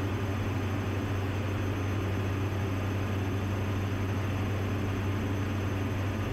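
Steady cockpit drone of a Diamond DA-42NG's twin Austro turbodiesel engines in flight: a constant low hum under an even rushing noise, with no change in pitch or level.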